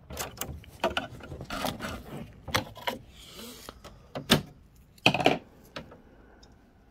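A string of sharp plastic clicks and knocks from handling an HP OfficeJet Pro 9015 inkjet printer, its cartridge access door being shut, with a brief rustle about three seconds in.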